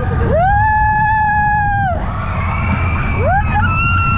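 Roller coaster riders screaming: one long high scream that swoops up and is held for over a second, then another rising and held near the end, over a steady low rumble of wind and the running coaster.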